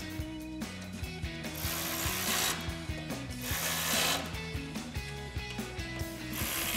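Cordless electric ratchet with a 4 mm Allen bit, running in short bursts, about three times, as it drives button-head bolts into rivet nuts, with clicks between runs.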